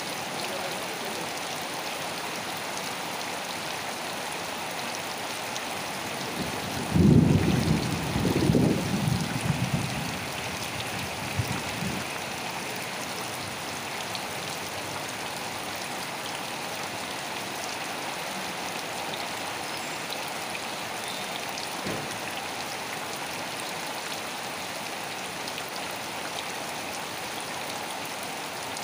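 Steady rain falling, an even hiss of drops. About seven seconds in, a low rumble swells up for roughly three seconds and is the loudest sound here.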